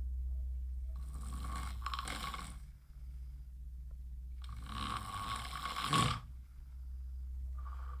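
A person snoring: two long snores about three and a half seconds apart, over a steady low hum.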